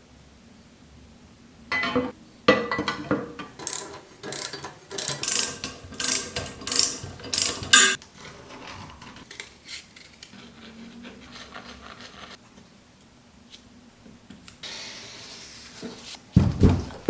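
Hand-tool work on metal parts of a bench grinder: a run of sharp clicks and scrapes for about six seconds, then quieter handling, and a heavy knock near the end.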